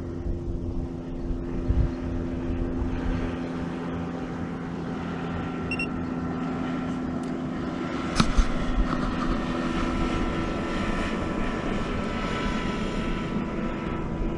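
Steady motor drone with a few held tones, and a single sharp knock about eight seconds in.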